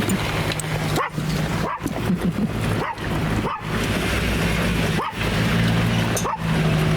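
A dog yipping and whining in short rising calls every second or so, inside a vehicle, over the steady hum of the running engine.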